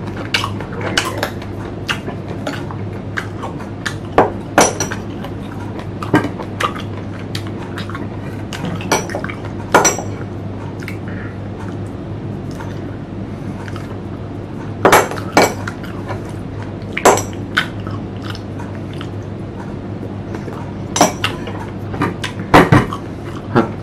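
A metal fork clinking and scraping against a plate in sharp, irregular clicks, a few of them much louder, mixed with close-up chewing of crunchy green mango.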